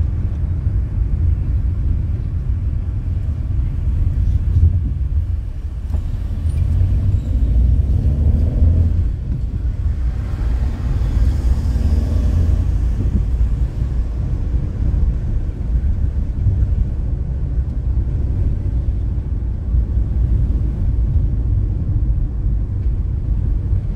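Road noise inside a moving car: a steady low rumble of engine and tyres, with a louder rushing swell about ten seconds in that fades away after two or three seconds.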